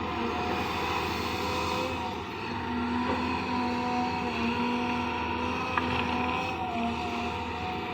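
Excavator engine running steadily, with a whine that wavers slightly in pitch over its steady hum. One sharp click about two thirds of the way in.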